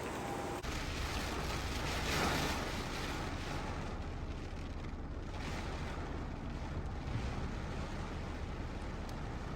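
Wind buffeting the microphone: a steady rushing noise with a low rumble, swelling briefly about two seconds in.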